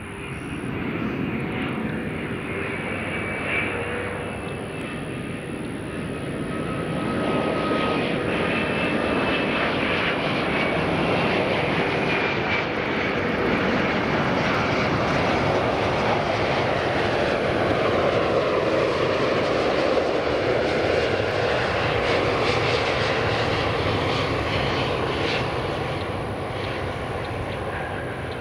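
Airbus A330-900 airliner, with Rolls-Royce Trent 7000 turbofans, passing close by on landing. The jet noise builds, stays loud for most of the pass with a sweeping shift in tone at its closest, then slowly fades.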